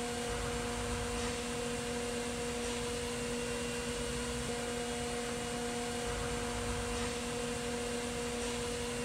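Overhead bridge crane's electric drive motors running, a steady hum with several constant tones.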